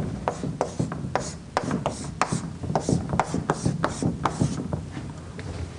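Writing by hand on a classroom board: a quick, irregular run of taps and scratches as letters are written, thinning out near the end.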